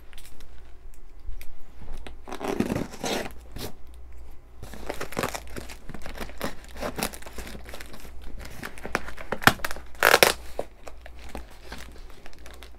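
Clear plastic stretch wrap being torn and peeled off a cardboard shipping box, crinkling in irregular bursts, the loudest about ten seconds in.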